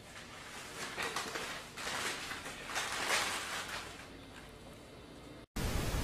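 Faint small rustling and handling sounds, then a short burst of loud white-noise static that starts and stops abruptly near the end, at a cut between clips.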